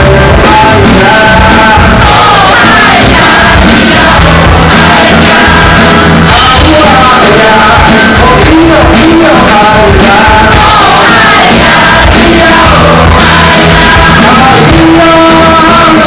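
A man singing live into a microphone while strumming an acoustic-electric guitar, amplified and recorded very loud.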